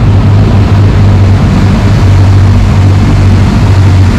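Twin Suzuki 350 hp V6 outboard motors running steadily at high speed, a steady low drone over a rush of wind and churning wake water.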